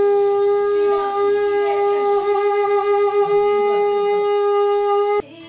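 Conch shell (shankh) blown in one long, steady note that cuts off abruptly near the end.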